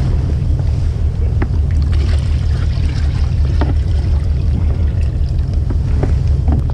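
Water sloshing and splashing as a red plastic tub is tipped and emptied onto a wooden boat deck, with a few light knocks of the tub. A steady low rumble runs underneath.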